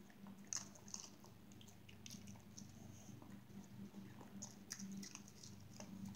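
Small dog chewing and crunching treats, with irregular small crunches and clicks of its bites. A steady low hum runs beneath.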